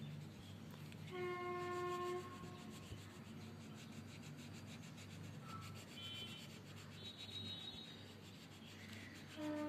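Colouring pencil shading on paper, a faint rubbing. About a second in, a steady horn-like tone with overtones sounds for about a second, and it is the loudest thing here. Another such tone starts near the end.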